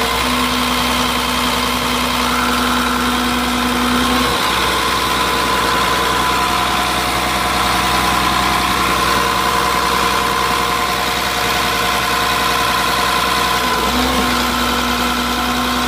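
Caterpillar 3126 inline-six diesel idling steadily, heard close up in the open engine bay. One tone in its sound drops out about four seconds in and comes back near the end.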